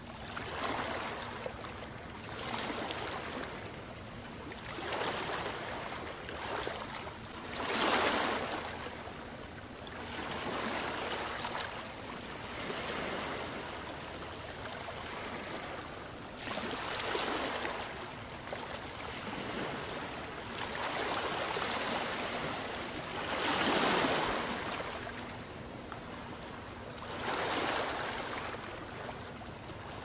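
Sea waves washing onto a sandy beach: a steady rush of surf that swells and falls back every few seconds, with a few louder swells.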